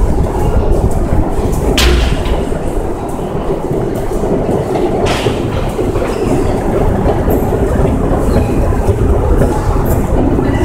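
Moscow Metro train running through the station: a loud, steady rumble of wheels on rails, with two brief brighter clanks about two and five seconds in.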